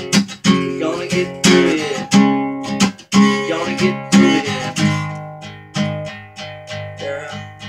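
Takamine acoustic guitar strummed in a steady rhythm. About five seconds in the strokes turn lighter and sparser, letting the chords ring and fade.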